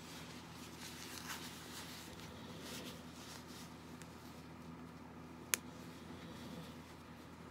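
Faint rustling of cotton baby clothes as hands tug a bodysuit down over a silicone reborn doll's diaper, with one sharp click about five and a half seconds in.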